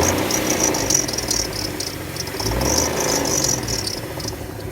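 Hyundai car engine being revved, swelling up twice, with a knock the owner says is still there but much reduced; the noise was later traced to a failing accessory pulley rather than the engine. A high-pitched chirping runs intermittently alongside.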